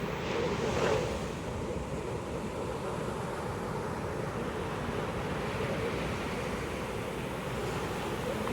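Ocean waves breaking and washing on a beach, a steady surf with one brighter wash about a second in. Some wind on the microphone.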